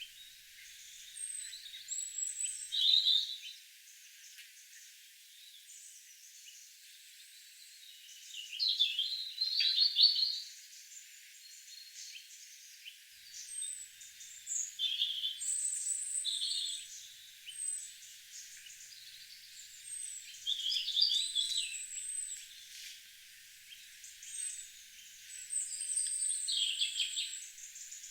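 Several garden songbirds singing, short phrases of chirps and whistles every few seconds, with louder bursts of song about 3, 10, 15, 21 and 27 seconds in. The recording is thin, with all low sound filtered out.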